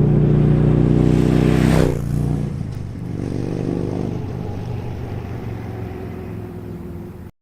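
Harley-Davidson Touring V-twin breathing through Vance & Hines Monster Oval slip-on mufflers, blipped up in pitch once and dropping back, then a smaller rev before settling to a steady idle. The sound cuts off abruptly near the end.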